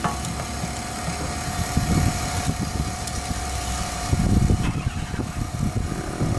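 AirDog II-4G DF-165 electric fuel lift pump, a brushed DC motor pump, running steadily with a constant whine, pushing fuel at 65 PSI on a 6.0 Powerstroke diesel. Irregular low rumbles come and go underneath, loudest about two seconds and four seconds in.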